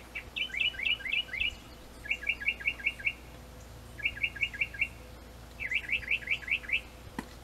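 A small bird chirping in four quick runs of five or six short, high, down-slurred notes, with brief pauses between the runs.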